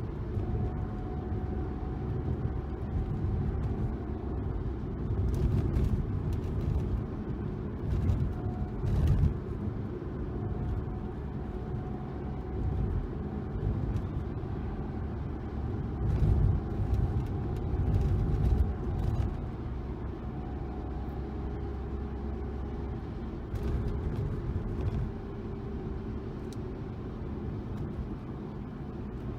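BMW E92 320i's four-cylinder engine running through a one-off dual exhaust, a low rumble that swells and dips every few seconds.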